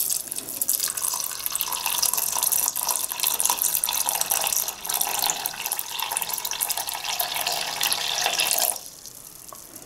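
Water poured in a thin, steady stream from a ceramic jug into a metal pot of adzuki beans, splashing onto the water's surface as the pot is refilled with fresh water for boiling. The pouring stops near the end.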